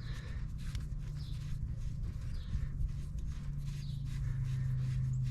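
A bird chirping in the background, short falling chirps repeated every second or so, over a steady low hum, with a few faint clicks.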